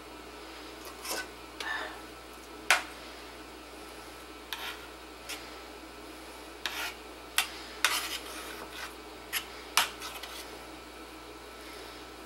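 Metal spoon scraping through mashed potato against a metal pan, with a few sharp clinks of spoon on metal scattered through. The loudest clinks come about two and a half seconds in and again near the end.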